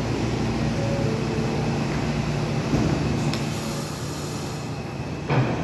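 R160B subway train at a station platform: a steady low rumble and hum, with a brief sharp knock about five seconds in.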